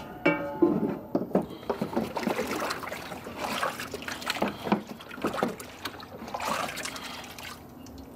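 Vinegar-and-water rust soak trickling, dripping and splashing off a tilted cast iron skillet into a plastic tub, in irregular small splashes.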